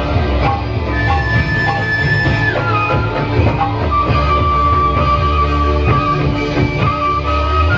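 Loud live music accompanying a Topeng Ireng folk dance: a high, held melody line with long notes that steps down about two and a half seconds in. Under it run a heavy bass and steady drum strokes.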